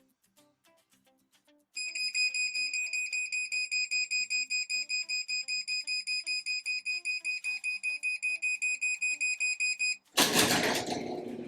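MyQ Chamberlain smart garage hub's warning sounder beeping rapidly and shrilly, about four or five beeps a second for roughly eight seconds. This is the alert that the garage door is closing by remote command, and it sounds like a fire alarm. Faint background music runs underneath, and a sudden loud burst of noise comes near the end.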